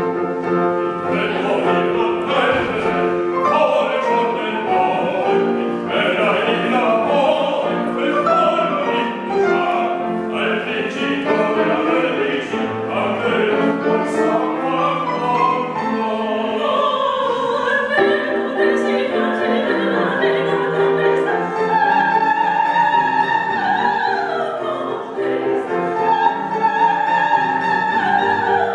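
Opera singers performing live, voices in song over instrumental accompaniment, with long held notes sung with vibrato near the end.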